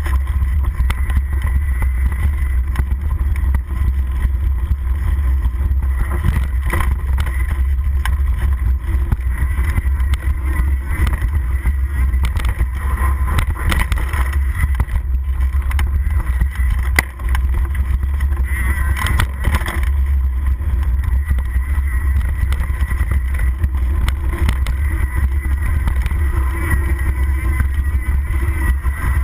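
Steady wind rumble on the microphone of a mountain bike descending a dirt singletrack, with tyre noise and scattered rattles and knocks from the bike over rough ground.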